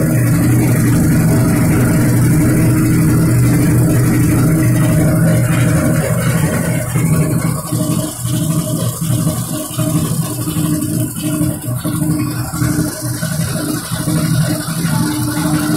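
Industrial popcorn machine running with a loud, steady motor hum. About six seconds in the sound turns uneven as popped corn tumbles out of the kettle and slides down the steel chute onto the conveyor.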